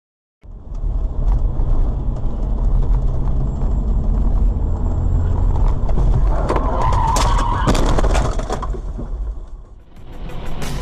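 Dashcam audio of a car driving: loud, steady road and engine rumble, with a loud screech and sharp clattering clicks from about six to eight and a half seconds in.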